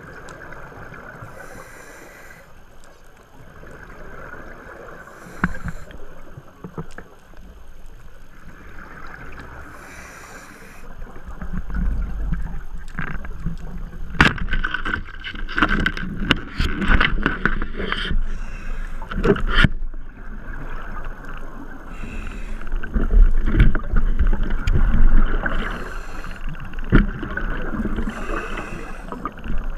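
Underwater noise heard through a camera's waterproof housing on a speargun dive: a steady rushing haze with low rumbling that builds partway through. A run of sharp clicks and knocks comes in the middle.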